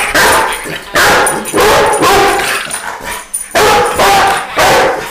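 A Rottweiler barking at a toy rat, about eight loud barks in quick succession.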